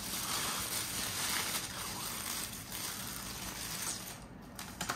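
Plastic carrier bag and paper takeaway food boxes rustling and crinkling as they are handled and unpacked.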